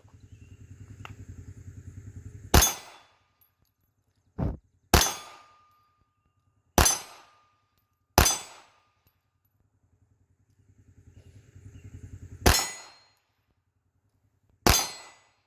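Taurus Spectrum .380 ACP micro pistol fired seven times at an uneven, unhurried pace, with steel targets clanging as they are hit and one ringing on briefly after a hit.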